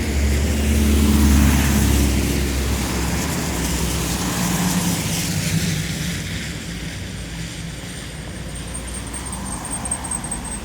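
Traffic passing along a wet town street: engine rumble and the hiss of tyres on wet tarmac swell as a vehicle goes by, then die down after about six seconds.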